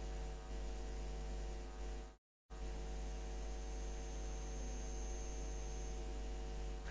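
Steady electrical hum with a hiss behind it, the background noise of the recording; it cuts out completely for a moment a little over two seconds in, then carries on unchanged.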